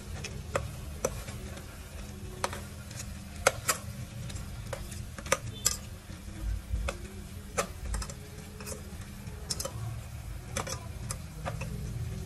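Metal spoon clinking against the inside of a stainless steel pot as pieces of fish are turned and rearranged: about a dozen irregular sharp clicks, over a low steady hum.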